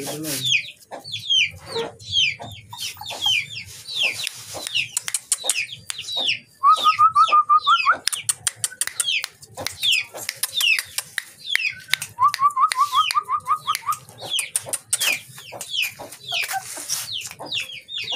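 Puppies whining with many short, high, falling cries. Twice, a loud, rapid chattering call of short, evenly spaced notes cuts in for a second or two.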